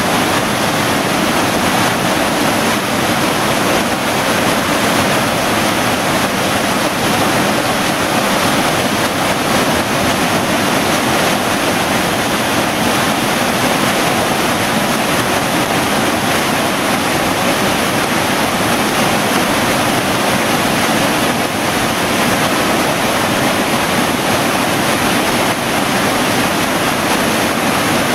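Loud, steady rush of a creek tumbling over boulders in small cascades, heard close to the falling water.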